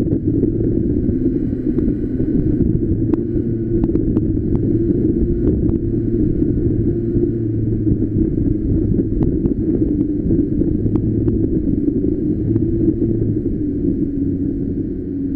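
Street go-kart's small engine running steadily while driving, under a low rumble of road and wind, with scattered light clicks and rattles.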